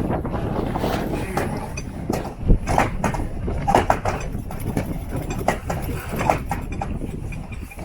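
Wind buffeting the microphone aboard a sailing catamaran, a steady low rumble with scattered knocks and clicks.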